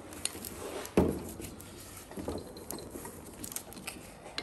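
Parts and tools being handled on a workbench: a single dull thud about a second in, then scattered light clicks and taps.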